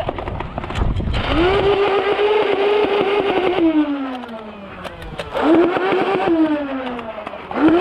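Flywheel motors of a LiPo-modded Nerf Rival Nemesis blaster spinning up with a rising whine, holding steady through rapid clicking fire, then winding down with a falling whine. It spins up twice, with a third spin-up near the end.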